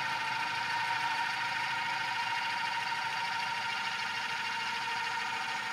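Earth Copter, a flying twin of the Ingenuity Mars helicopter, in flight: its coaxial rotors give a steady buzzing hum with a strong steady tone in it.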